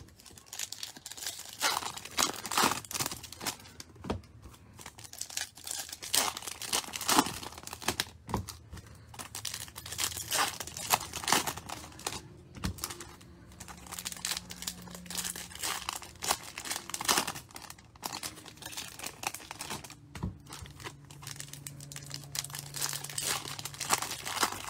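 Foil wrappers of 2020 Bowman Chrome trading-card packs crinkling and tearing as they are ripped open and handled, in a run of irregular crackles.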